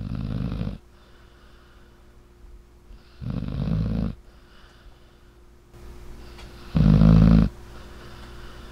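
A sleeping dog snoring, three slow snores about three seconds apart, each under a second long.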